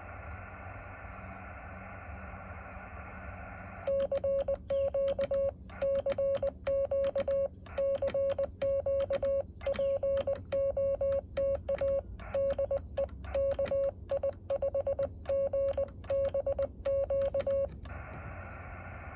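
Yaesu FT-817 transceiver: a few seconds of receiver band hiss, then about fourteen seconds of Morse code keyed as a steady mid-pitched beep, with the static dropping out while it sends, and then the hiss comes back. The hiss is wide open because the radio's narrow CW filter isn't working.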